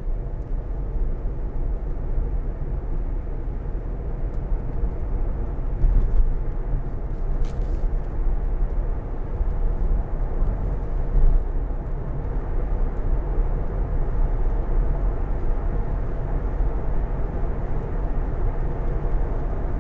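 Steady road noise of tyres and wind heard inside the cabin of an electric Tesla Model Y cruising at freeway speed. It swells briefly twice, about six and eleven seconds in.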